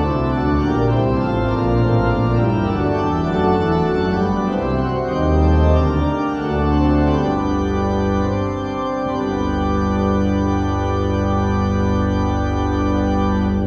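Organ playing a stately dance in full chords, the notes moving for the first half and then settling into a long final chord over a deep held bass, which is released at the very end.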